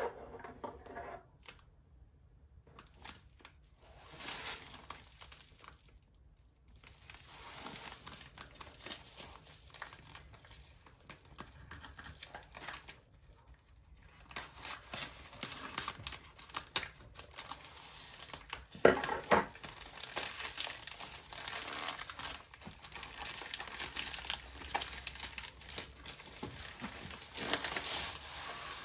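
Padded plastic mailer crinkling and rustling as it is handled, cut open with scissors and peeled back to slide out a cardboard-wrapped parcel. The rustling comes in bursts, denser in the second half, with one sharper, louder crackle partway through.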